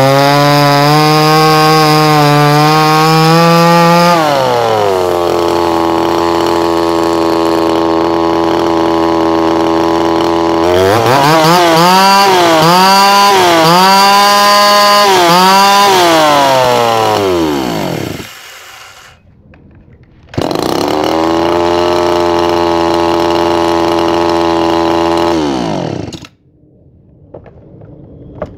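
Ported Homdox two-stroke chainsaw with its muffler baffle removed, running at full throttle in a cut, then dropping to a steady idle about four seconds in. It revs up again through a cut, its pitch rising and falling in several surges, then dies away. After a short silence it starts again and idles until it is shut off near the end. The owner thinks the engine still runs a little rich at the top end after porting.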